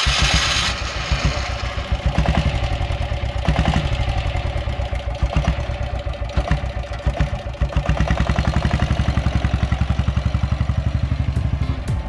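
Sooraj 325 cc diesel motorcycle engine catching on its electric self-starter and then running with a steady, rapid chugging as the bike rides off.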